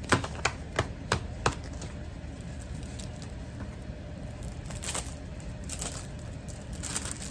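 A stack of thin paper handled: about five sharp taps and flicks in the first second and a half. Then a clear plastic sleeve is rustled and crinkled three times near the end as it is smoothed over a flat light pad.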